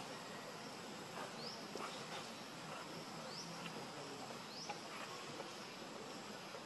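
Outdoor insects buzzing steadily, with a few short rising high chirps.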